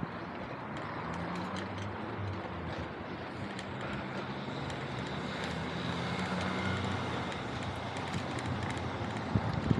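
City street traffic heard from a bicycle: a motor vehicle running close by with a low engine hum over steady road noise, and a few sharp knocks near the end.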